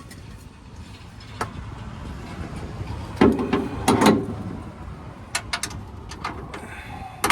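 Metal clinks and knocks of a socket and ratchet being worked onto a bolt head under a truck, with a louder cluster of knocks a little past halfway and scattered clicks after it.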